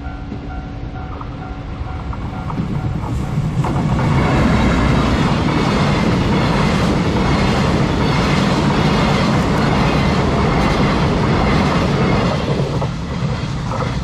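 Electronic level-crossing warning bell ringing in a steady repeating pattern. About four seconds in, a freight train of empty Chiki rail-carrying flatcars hauled by an EF210 electric locomotive passes close by, its wheels clattering over the rail joints. The train drowns out the bell, then eases off near the end.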